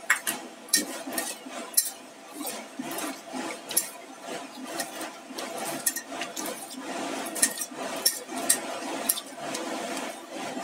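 Wet potato slices being tossed by hand with salt in a small stainless steel pan, with irregular clicks and clinks as the slices and fingers knock against the metal.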